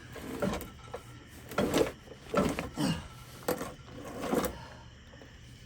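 A series of short knocks, clunks and scrapes from parts and tools being handled, about six separate sounds spaced irregularly.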